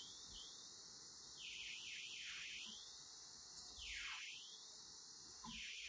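Near silence: faint background hiss, with no distinct sound.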